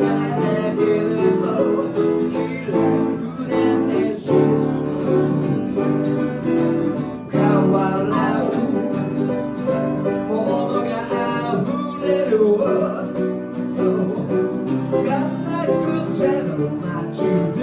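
Instrumental break in a song, led by guitar with the band's accompaniment.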